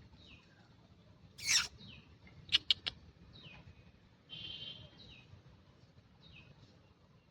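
A bird calling repeatedly with short, high falling chirps every second or so. A louder shrill burst comes about one and a half seconds in, three sharp chirps follow in quick succession, and a brief trill comes past the middle.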